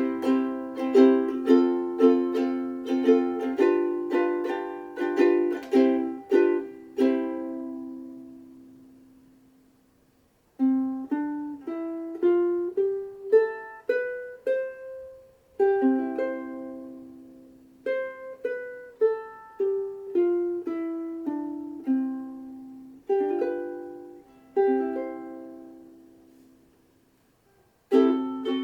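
Sumi UK-T3M soprano ukulele, with a Honduras mahogany body and an ebony fingerboard, being played. Chords are strummed briskly, and about seven seconds in a final chord is left to ring and fade away. A picked melody of single notes and small chords follows, dies away, and strumming starts again at the very end.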